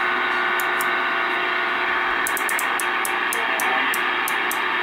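CB base station receiver hissing with static through its speaker, with a faint steady hum tone under it. Short sharp clicks come over it, a few at first and then a quick run of them from about two seconds in.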